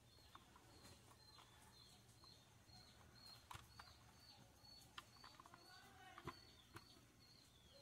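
Near silence, with a faint chirp repeating evenly about two or three times a second, typical of a small bird, and a few soft clicks of small plastic mouse parts being handled and pressed together, the loudest two in the second half.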